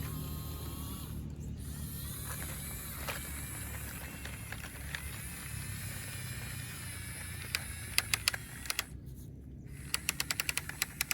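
Small geared motor of a radio-controlled model running with a steady low hum, with a few sharp clicks and then a quick run of clicks near the end, about six a second.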